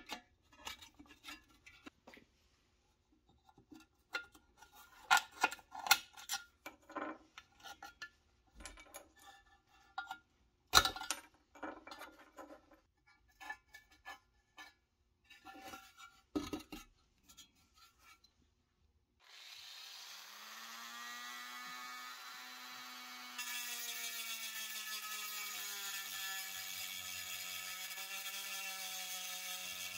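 Sharp clicks, clinks and scrapes of pliers and hands working the thin pressed-steel body of a 1960s Nylint toy truck, some clinks ringing briefly. About nineteen seconds in, a small rotary tool starts with a whine that rises as it spins up. A few seconds later it gets louder and a grinding hiss joins it as the bit bites into a rivet to drill it out.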